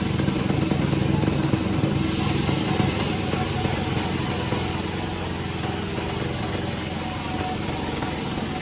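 Sawmill's engine running steadily with a fast, even pulse, easing a little about halfway through.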